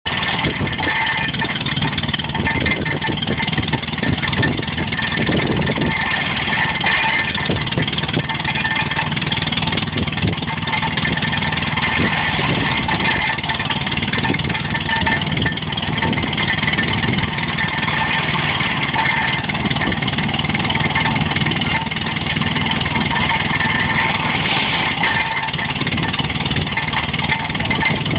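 Stationary square baler running steadily with the engine that powers it, a continuous mechanical clatter over an engine hum.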